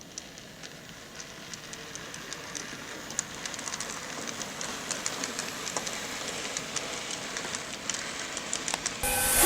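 N gauge model train running on the track, a steady hiss with many small clicks from the wheels over the rail joints, growing louder as it comes closer. Near the end a recorded real-train horn starts sounding loudly.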